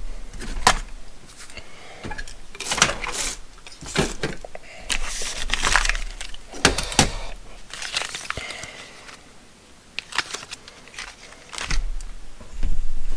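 Packs of small metal hardware (washers, nuts and bolts) being handled and set down: a series of metal jingles and clacks, with packaging rustling in between.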